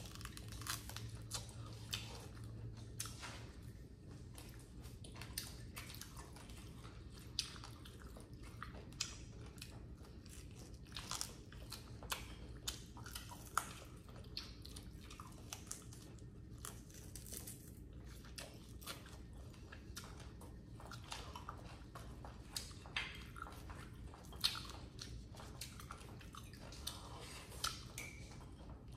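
Close-miked chewing and biting of goat meat off the bone, a scatter of irregular small clicks and crunches.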